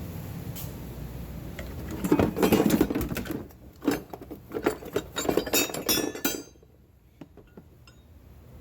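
Metal parts clinking and rattling as they are handled, in dense clusters of sharp knocks starting about two seconds in and stopping about six and a half seconds in. The parts are most likely the cut-down Jeep Cherokee XJ steering shaft and its joints being moved to show them.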